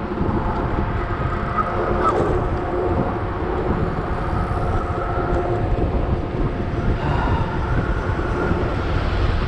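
Electric bike riding on a street, with wind and road noise and a steady whine. Its underinflated, hockey-taped rear tyre knocks out a steady rhythm as it turns, a 'doot doot doot' limping sound that marks the damaged tyre.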